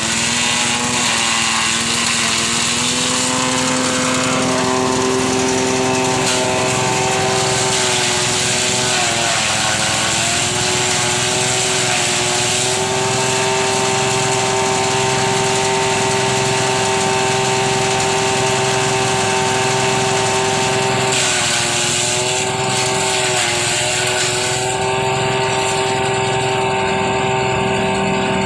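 Small single-cylinder engine of a mini chopper running on test at a fast, steady speed. Its pitch rises about four seconds in, then dips and recovers a few times as the throttle eases off and opens again.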